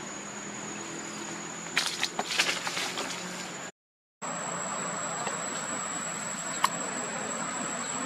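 Macaques scuffling on dry ground, heard as a brief cluster of sharp rustles and scrapes about two seconds in. Underneath is a steady outdoor hiss with a thin high tone. The sound cuts out completely for half a second just before the middle, then the steady hiss returns.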